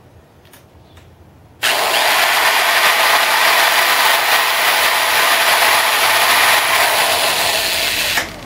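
Electric drill running under load as its bit cuts a hole through a thick pistol trigger assembly. It starts suddenly about a second and a half in, holds steady for about six and a half seconds, and stops abruptly near the end.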